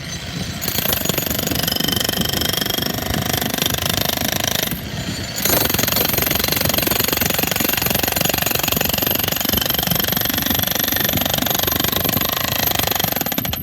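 Bauer 35-pound electric demolition hammer breaking up a concrete pad, hammering rapidly and continuously. It pauses briefly about five seconds in, then runs on and stops right at the end.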